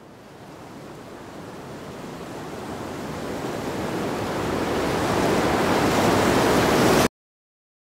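A rushing noise swelling steadily louder for about seven seconds, then cutting off abruptly.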